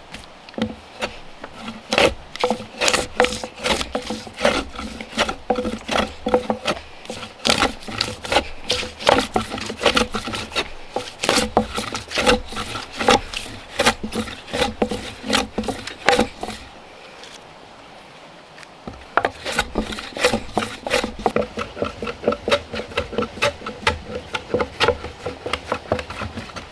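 Wooden hand plane shaving along a rough log bench top in quick repeated strokes, about two or three a second, with a pause of about two seconds about two-thirds of the way through.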